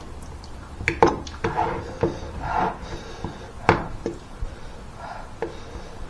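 Eating noodles: utensils knock sharply against a bowl about half a dozen times, loudest about a second in and again before the four-second mark, between short moist eating noises.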